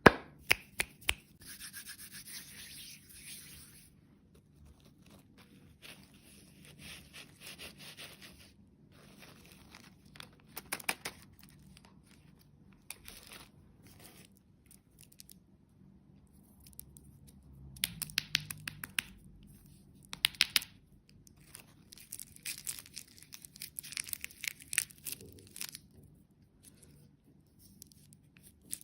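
Bursts of scratchy rubbing and rustling, each a second or two long, with sharp clicks and taps in between.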